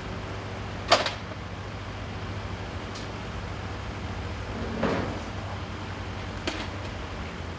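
Metal knocks and clunks as sections of a large bronze sculpture are handled and fitted together: a sharp knock about a second in, a duller thud about five seconds in and a light click later. A steady low engine hum from the idling crane runs underneath.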